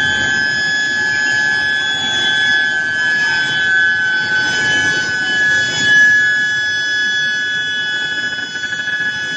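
Large square-billet induction reheating furnace running: a loud, steady high-pitched whine from the induction coils, with industrial rumble underneath.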